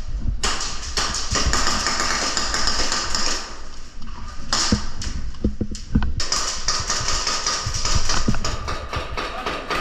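Airsoft guns firing in an indoor arena: dense rapid clicking and hiss in stretches of one to three seconds, with short gaps between them.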